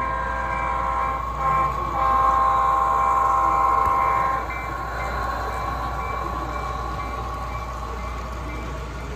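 Model diesel locomotive's sound-system horn sounding: a blast with a short break about one and a half seconds in, then a long blast that stops about four and a half seconds in. After it, the model train keeps rolling past with a steadier running noise.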